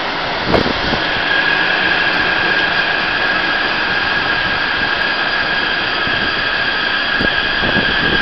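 Taipei Metro C371 electric train pulling into the station, its cars rolling past with steady rail noise and a steady high whine. A single sharp knock about half a second in.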